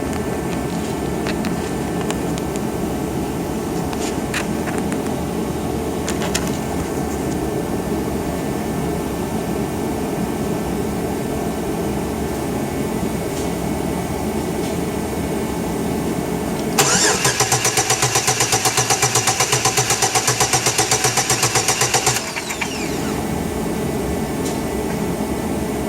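Chevy Trailblazer engine cranked by its starter for about five seconds in a rapid, even pulsing rhythm, over a steady mechanical hum, then cut off abruptly; this cranking is part of diagnosing a misfire from spider injectors that are not squirting fuel.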